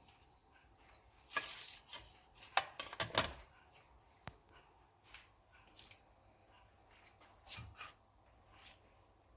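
Scattered rustles, clicks and light knocks of things being handled in a kitchen, in a few short bursts with quiet stretches between.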